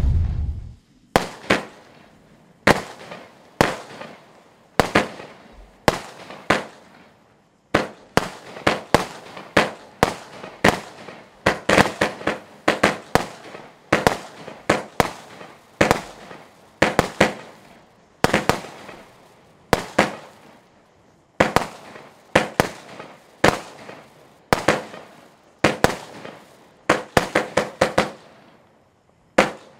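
Lesli Boa Constrictor 66-shot firework cake firing: a rapid, irregular string of sharp reports, often two or three a second, each dying away quickly, with a few short pauses between volleys.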